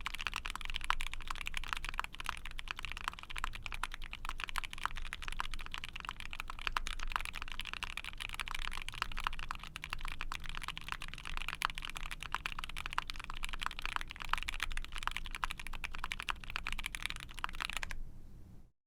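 Continuous fast typing on a mechanical keyboard with factory-lubed Gateron Oil King linear switches, a POM plate and GMK keycaps: a dense run of keystrokes, deep-sounding, that stops abruptly near the end.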